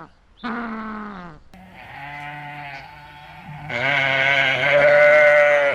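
Livestock bleating. A falling bleat about half a second in, lower overlapping bleats through the middle, then one long, loud bleat over the last two seconds.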